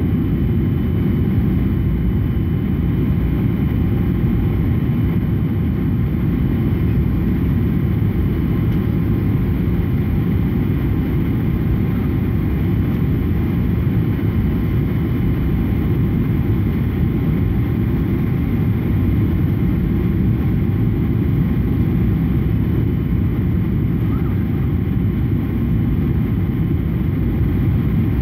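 Steady cabin noise of a jet airliner on its landing approach: a deep, even rumble of engines and airflow with a faint steady whine above it.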